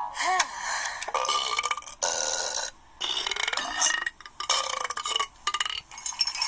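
A string of burps, several in a row with short breaks between them.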